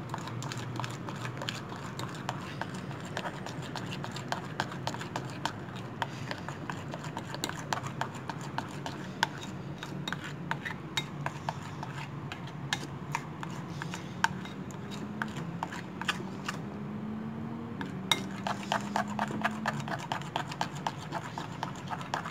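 Metal spoon stirring thick flour-and-egg batter in a ceramic bowl, clicking and scraping against the bowl in rapid, irregular strokes.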